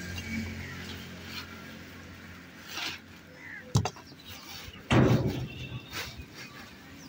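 Plastic sheeting rustling and crackling as it is pulled and tucked down over a covered heap. There is a sharp knock about four seconds in, and the loudest sound, a heavier thud, about a second later.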